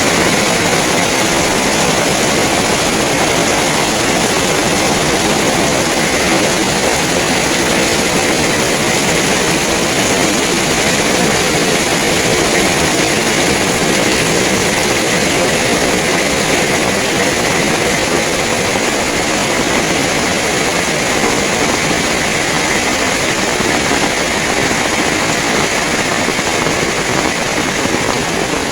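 Heavy rain pouring down in a steady, dense hiss, with strong wind.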